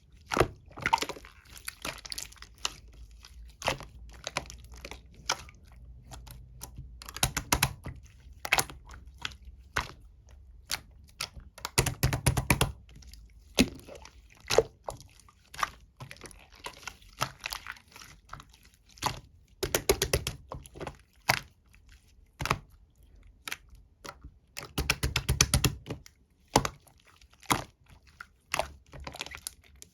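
Slime being squeezed, stretched and poked by hand, giving sticky clicks and pops, with several runs of rapid crackly popping.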